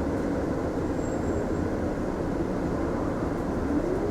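Mitsubishi Fuso Aerostar city bus running, heard from inside the passenger cabin: steady road and engine noise, with a rising whine coming in near the end.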